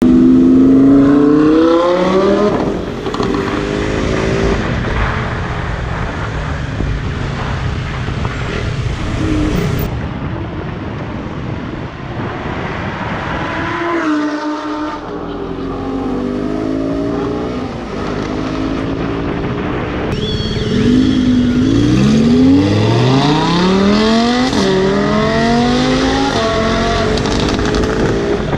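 Lamborghini Huracán V10 with an aftermarket Fi exhaust, revving and accelerating hard. The engine note climbs in pitch several times, dropping between pulls as it shifts gear. It is loud throughout.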